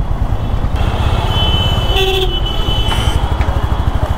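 Honda CB350's single-cylinder engine running with a steady low beat, while vehicle horns toot in the surrounding traffic, the loudest a short honk about two seconds in.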